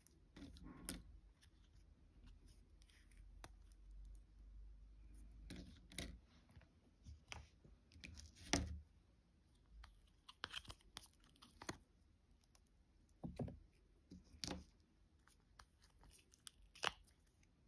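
Silicone mold being flexed and peeled away from cured resin pieces, giving soft crackling and peeling sounds. A few sharp clicks come as the hard resin pieces knock together or are set down on the table, the loudest a little past the middle.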